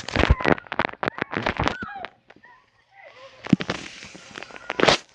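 Firecrackers going off in a fast, irregular string of sharp cracks, with two heavier bangs in the second half, and faint voices underneath.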